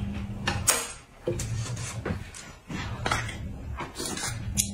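A person eating at a table with chopsticks: short clicks of chopsticks and china against dishes, a few seconds apart, amid slurping and chewing.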